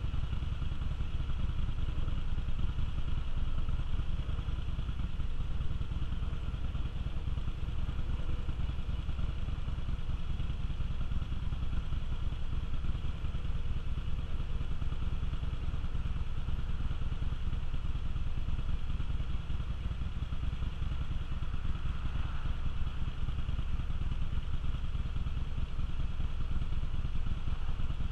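Cruiser motorcycle engine idling steadily while stopped, with a fast, even low pulse that does not change.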